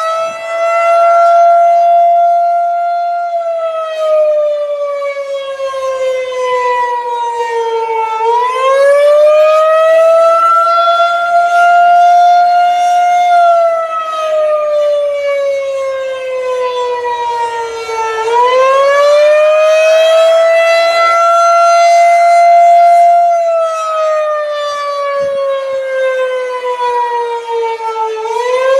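Federal Signal 2001-130 electromechanical warning siren sounding the wavering Attack signal. Its tone winds up, holds high for a few seconds, then slides slowly down, rising again about every ten seconds.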